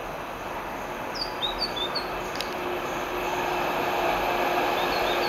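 Approaching train, a steady distant rumble slowly growing louder, with a steady hum joining about three seconds in. Small birds chirp several times about a second in.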